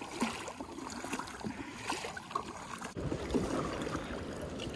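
Water splashing and sloshing around a tandem sit-on-top kayak as it is paddled, with short splashes from the paddle strokes. About three seconds in, the sound changes abruptly to a deeper, steadier rush of water.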